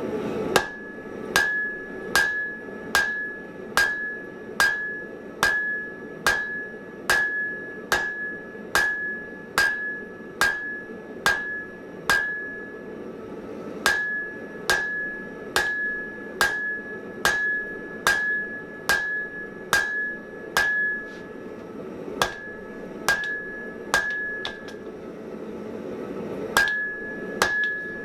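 Blacksmith's hand hammer striking hot mild steel on an anvil in a steady rhythm of roughly one blow a second, each blow followed by a bright ring from the anvil. The hammering pauses briefly three times.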